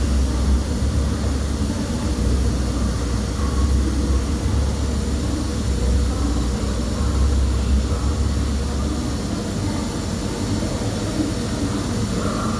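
Arc welding in progress: a continuous crackling arc over a strong low electrical hum, with no break in the arc.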